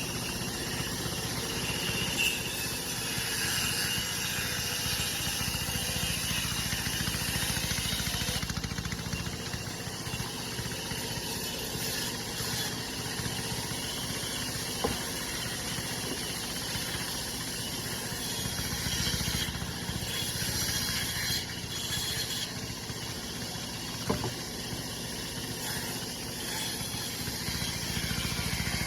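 Bandsaw machine cutting wood: a steady motor hum with hiss above it, broken by two short sharp knocks partway through.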